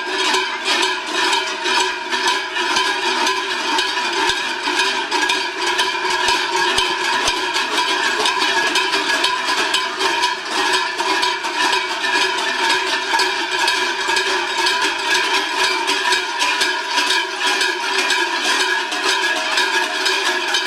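Many large cowbells worn by Klosn bell-bearers (Scheller) clanging together in a dense, unbroken din, the strikes running into one another.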